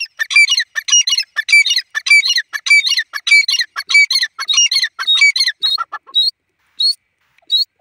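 Grey francolin calling: a fast, loud series of shrill, harsh repeated notes for about six seconds, then three single notes spaced apart near the end.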